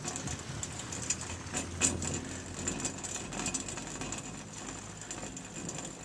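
Chairlift running, the cable and tower sheave wheels giving a low rumble with a run of clicks and rattles as the chair passes a lift tower. The rumble eases after about three seconds, the sharpest click coming about two seconds in.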